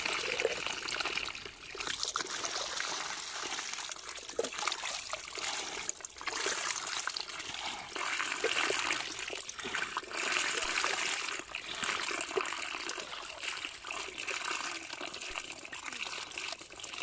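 A mass of small live puti fish flapping and splashing in a wet bamboo basket: a continuous crackling, trickling patter of many tiny wet slaps that swells and eases.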